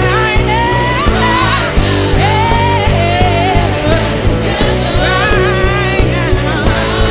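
Live band playing with a singer: a held, wavering vocal line over bass guitar and a steady drum beat.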